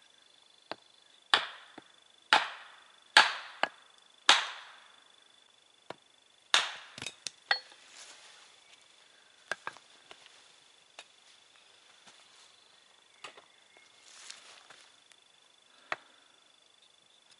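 Wooden maul knocking on an axe to split the edges off a block of wood on a chopping stump: four heavy strikes about a second apart, then another strike followed by a quick run of lighter knocks, then scattered light taps.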